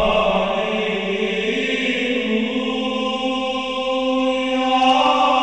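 Music: voices singing a slow chant in long held notes that shift pitch a few times.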